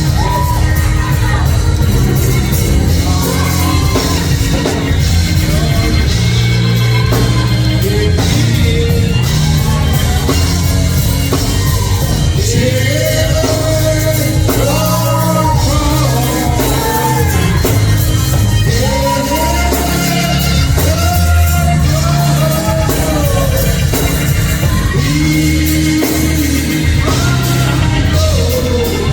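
Live gospel music from a church band, with a heavy bass line under a singing voice that rises and falls.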